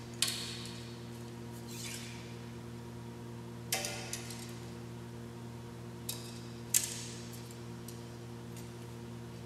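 Arrows clicking and rattling as one is drawn from a quiver and nocked onto a recurve bow's string, giving a few short, sharp clicks, the sharpest about two-thirds of the way through. A steady low hum runs underneath.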